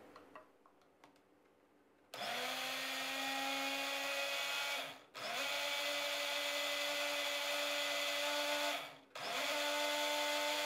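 Countertop electric blender blending thick salad dressing. It starts about two seconds in and runs in three bursts with two brief stops between them, the motor holding a steady pitch.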